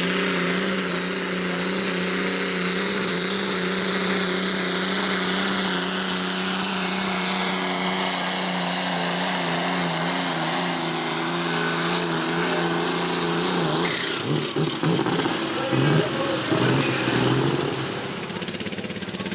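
Turbocharged diesel engine of a light pro stock pulling tractor running flat out under load as it drags the weight sled, a steady high-revving drone. About fourteen seconds in it turns uneven and rough, the revs rising and falling.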